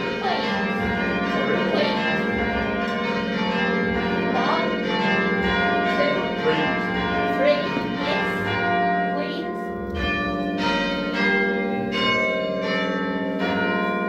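A ring of six church bells being rung down in peal, struck in quick, close rounds as their swing shortens. In the last few seconds the separate strikes stand out more clearly as the bells come down.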